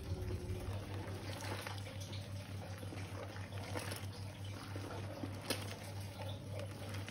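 Foamy slime being squeezed, kneaded and stretched by hand, with wet squishing and many small crackling pops of bursting foam bubbles; one sharper pop about five and a half seconds in.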